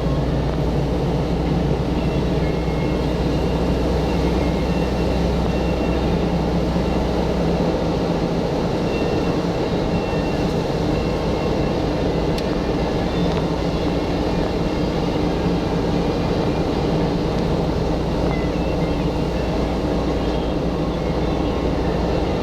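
A car's engine and road noise heard from inside the cabin, running steadily while climbing uphill; the low engine tone shifts about eight seconds in.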